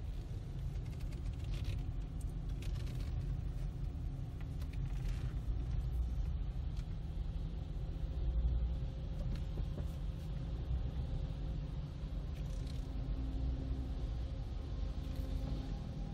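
Low steady rumble of a car's engine and tyres, heard from inside the cabin while the car drives slowly.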